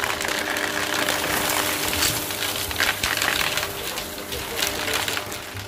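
Shark DuoClean vacuum cleaner running over carpet: a steady motor hum and suction hiss. Scattered clicks and rattles of debris are sucked up, mostly around the middle.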